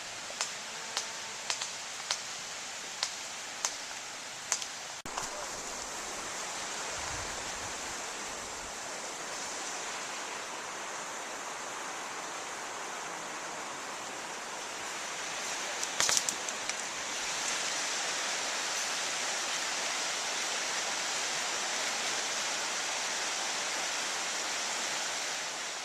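Steady rushing noise with a few sharp clicks spaced about half a second to a second apart in the first few seconds, a short cluster of clicks about two-thirds of the way through, and the rushing growing louder soon after.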